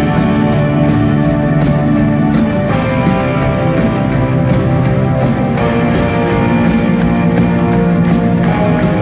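Live rock band playing loudly in an arena: electric guitars, drums keeping a steady beat and a string section with cellos, heard from the audience.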